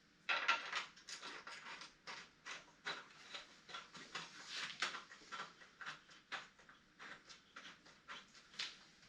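Small steel hardware being handled: light, irregular clicks, clinks and scrapes as hex bolts and lock and flat washers are taken apart and fitted back into a saw stand's mounting bracket.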